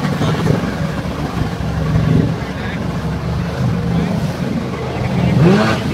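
Stand-up jet ski engine running hard in a swimming pool, its pitch rising and falling as the rider throttles, with water spray hissing. About five and a half seconds in the engine revs up sharply.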